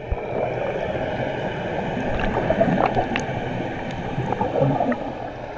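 Underwater pool noise heard through a GoPro held below the surface: a steady muffled gurgling rush of water with scattered small clicks.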